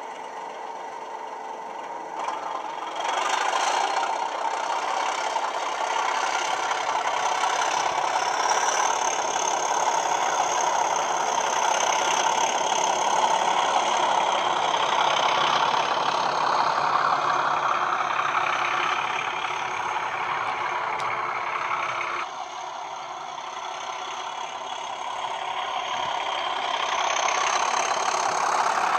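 Model Class 37 diesel sound (Coastal DCC Class 37/0 file on a LokSound decoder through an EM1 speaker), an English Electric V12 engine note that opens up as the loco pulls away. A high turbo whistle joins about eight seconds in. The engine eases back about 22 seconds in, then builds up again near the end.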